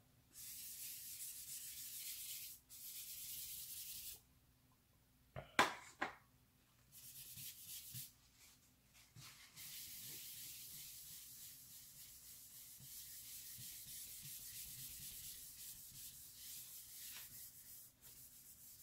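Paper towel wet with Gamsol thinner rubbed back and forth over a wooden artist's palette, a dry scrubbing hiss in spells as it lifts a paint stain off the wood. A short clatter about five and a half seconds in.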